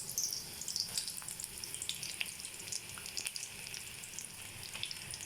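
Chopped onions sizzling in hot mustard oil in a kadai, freshly added, with a steady hiss and scattered small pops.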